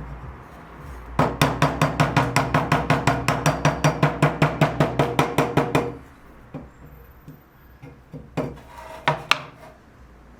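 Rapid, even tapping on wood, about six strikes a second for some five seconds, then a few separate knocks near the end.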